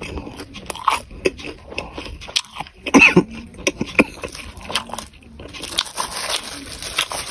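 Close-miked chewing of a big mouthful of two chili-oil meatballs (bakso): repeated wet smacks and clicks, loudest about three to four seconds in.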